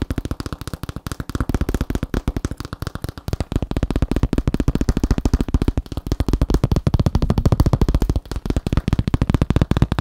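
Thin plastic sheet tapped rapidly with the fingertips: a fast, dense run of light taps, about ten a second, getting a little louder about halfway through.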